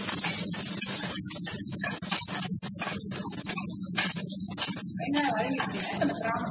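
Chopped onions sizzling in hot oil in a stainless steel kadai, stirred with a metal spatula that scrapes and taps the pan in short strokes, over a steady low hum.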